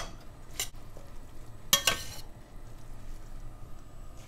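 A utensil stirring stir-fried vegetables in a stainless steel wok, scraping and clinking against the pan in a few sharp strokes, the loudest about two seconds in.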